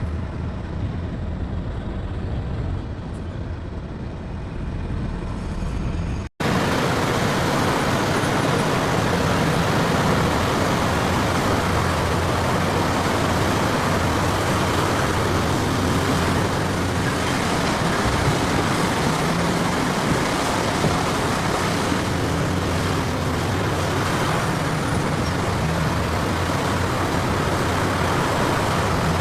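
A heavy diesel engine runs with a low, steady rumble. After an abrupt cut about six seconds in, a loud, steady rushing noise takes over.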